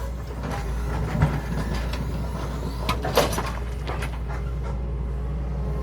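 Excavator's diesel engine running steadily as it handles rocks, with a few sharp knocks of stone, the loudest about three seconds in.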